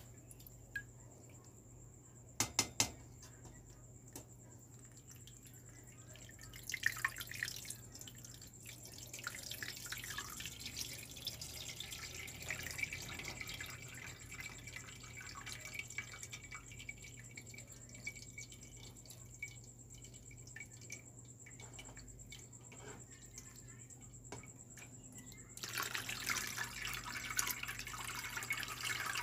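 Drinking water poured from a bottle onto cooked tapioca pearls in a stainless mesh strainer, splashing and trickling through. A few sharp clicks come a few seconds in; the pouring starts about a quarter of the way in, eases off in the middle, and a louder pour starts near the end.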